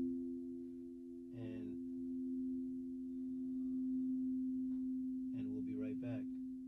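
Quartz crystal singing bowls ringing on after being played, a steady low hum of two close tones slowly fading. A soft voice comes in briefly twice over it.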